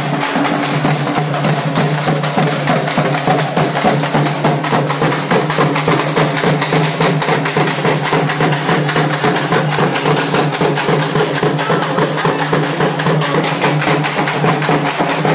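Frame drums beaten with sticks in a fast, dense, continuous rhythm for street dancing. A steady low drone runs underneath.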